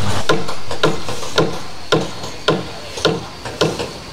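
Rhythmic knocking: sharp strikes at an even pace of about two a second, each a dull thud with a click on top, like repeated hammer blows.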